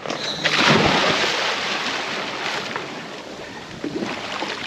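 Seawater splashing and rushing, swelling suddenly about half a second in and then slowly easing into a steady wash of waves with wind on the microphone.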